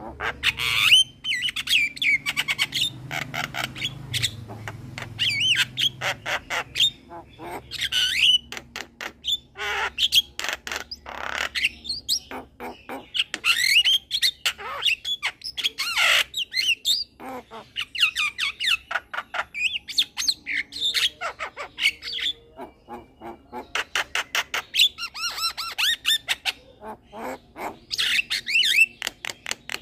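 Young male Javan myna singing a long, varied bout of harsh squawks, whistled phrases and rapid clicking rattles, with only brief pauses.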